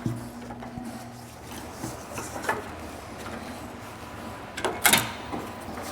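Metal clicks and clinks of hand tools as a stuck part is worked loose with channel-lock pliers, a few light clicks and then a louder clatter about five seconds in.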